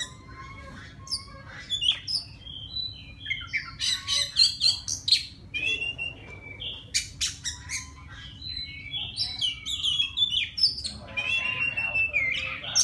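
Caged male oriental magpie-robin singing to call a mate: a varied run of clear whistles, quick rising and falling notes and short harsh, clicking notes, over a low steady hum.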